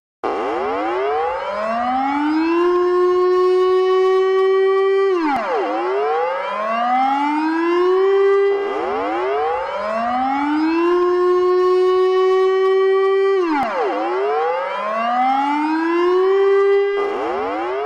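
Emergency warning siren wailing. Its pitch climbs slowly, holds high, then drops sharply and climbs again, four times over.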